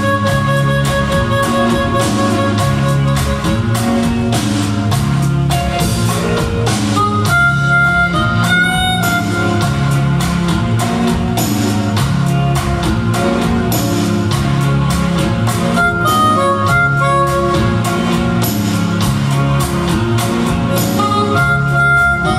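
Live band playing an instrumental tune: harmonica lead with electric guitar, bass guitar, drum kit and hand percussion over a steady drum beat and moving bass line.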